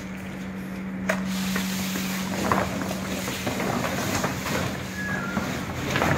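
Rustling and crinkling of a large woven polypropylene big-bag fabric being handled and spread out, with a few sharp clicks, over a steady low hum.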